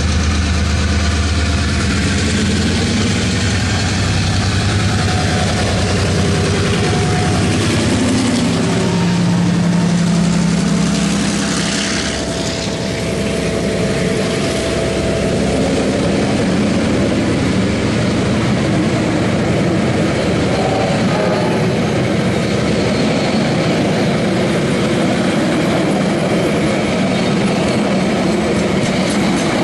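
A train passing close by at slow speed. The heavy low engine of a diesel locomotive is loud at first and fades over the first several seconds, and then a long line of passenger carriages rolls past with steady wheel-on-rail rumble and rattle.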